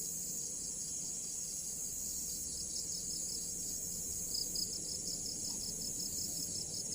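Insects, crickets by their sound, chirring in a steady high-pitched chorus with a rapid pulsing trill underneath.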